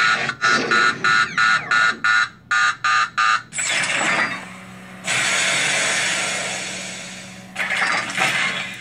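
Proton pack sound effects played through a small loudspeaker: a rapid pulsing warning beep, about four pulses a second, then from about four seconds in a loud steam-like venting hiss that fades away, with a second short burst of hiss near the end. The hiss comes as the pack's smoke kit vents, marking the overheat-and-vent sequence.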